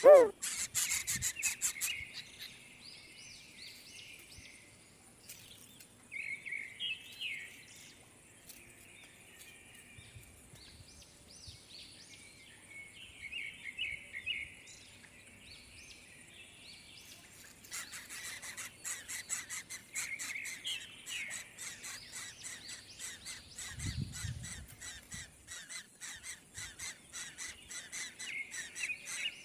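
Birds chirping in repeated short clusters, with rapid ticking at times. The loudest sound is a brief falling call right at the start, and there is a low thud about three-quarters of the way through.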